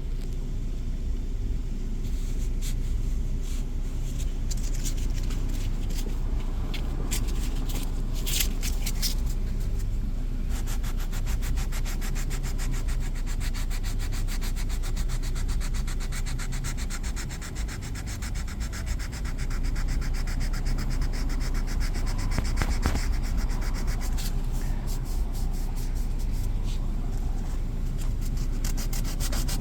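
Sandpaper being worked over a cracked vinyl center console, sanding down the raised edges of the split to bring them flush. It makes a steady scratchy rubbing, which turns into dense, rapid strokes about a third of the way in and eases briefly a little past the middle.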